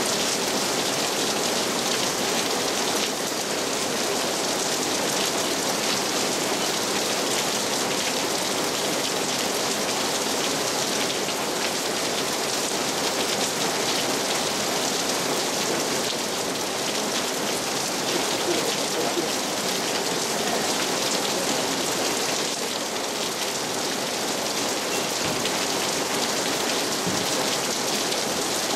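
Heavy rain falling steadily, a dense even hiss of drops without a break.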